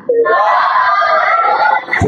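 A voice over the microphone holding one long drawn-out vowel for nearly two seconds, slightly wavering in pitch, as in a chanted or sung-out word.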